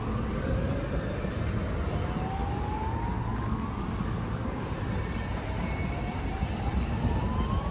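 A siren sounding in slow rising sweeps, about one every three to four seconds, over a steady low rumble of city traffic.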